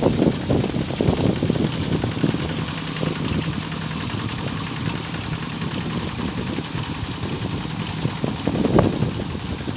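Diesel engine of a two-wheel hand tractor running steadily under load while it works the flooded paddy, with rougher louder surges about a second in and near the end.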